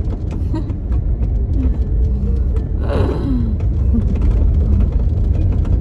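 Steady low rumble of a car driving, heard from inside the cabin: engine and road noise. A short voice-like sound comes about three seconds in.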